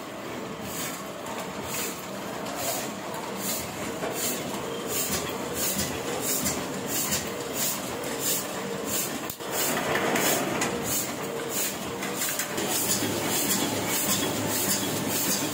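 Small sheet-fed offset printing press running, a steady mechanical clatter with a beat about twice a second. About nine seconds in it switches to a louder, closer run of the press.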